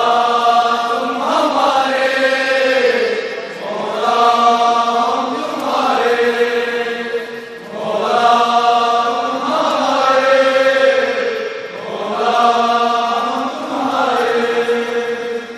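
Men's voices chanting a noha, a Shia mourning lament, in long, drawn-out phrases that rise and fall, each lasting a few seconds.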